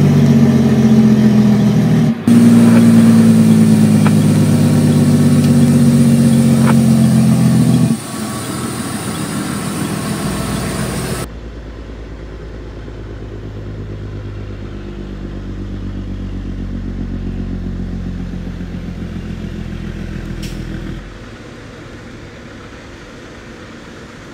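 Heavy diesel semi-truck engine with its Jake brake (compression engine brake) on, a loud, steady pulsing rattle that breaks off about 8 seconds in. After a sudden cut, a quieter, distant truck rumble fades out about 21 seconds in.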